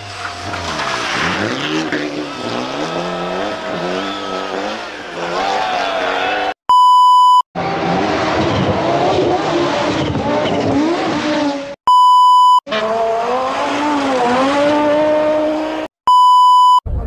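Rally car engines revving hard, pitch climbing and dropping again and again through gear changes. This is broken three times by a loud, steady test-tone beep lasting about a second each: the tone played over TV colour bars.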